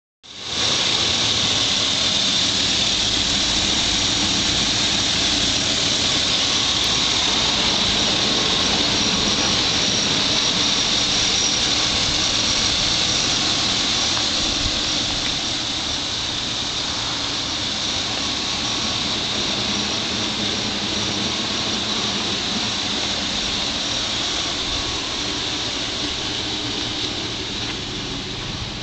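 Chevrolet Tahoe's Vortec V8 idling with the hood open, a steady high-pitched whine over the engine noise. It gets somewhat quieter about halfway through.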